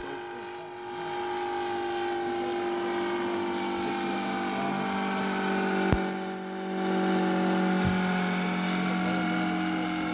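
Engine of a radio-controlled Stearman biplane model running steadily in flight overhead, a droning tone whose pitch shifts slightly as the plane moves across the sky; it dips briefly and comes back louder about seven seconds in. A sharp click about six seconds in.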